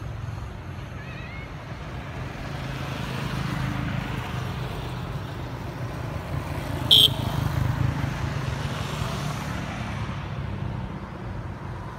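Motor vehicle traffic running as a steady low hum, swelling and fading through the middle. About seven seconds in there is one short, sharp, high-pitched sound.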